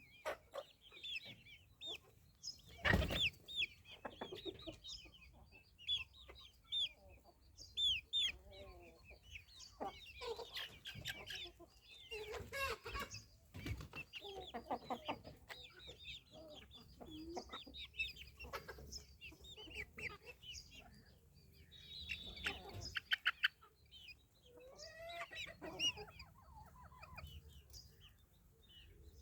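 Chickens clucking and calling in many short, separate calls, with a sharp knock about three seconds in and a quick run of clicks a little past two-thirds of the way.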